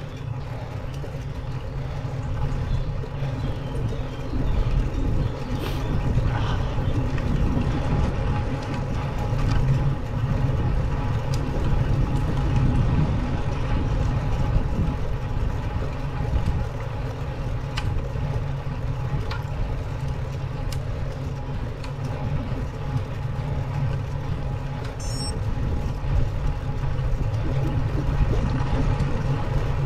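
Steady low rumble of wind and road vibration on a bike-mounted camera's microphone as a road bike climbs slowly, with a few faint ticks.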